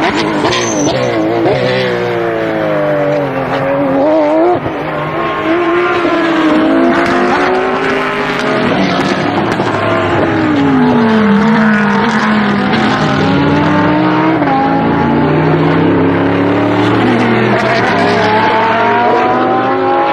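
Several GT race car engines running at once, passing close by: their pitches fall as they brake and shift down, then climb again as they accelerate through the gears, the sounds overlapping throughout.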